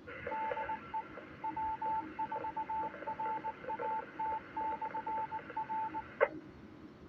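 Radio repeater sending its Morse code identification: a single beeping tone keyed in dots and dashes over radio hiss, heard through the receiver. It ends with a sharp click as the transmission drops.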